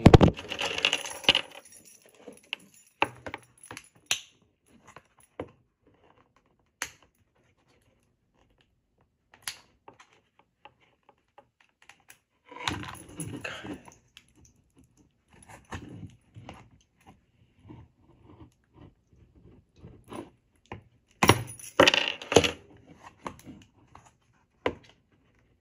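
Plastic DVD case being handled while its security tape is peeled off: scattered clicks and crinkly scraping, with louder bursts of handling near the start, about halfway, and a few seconds before the end.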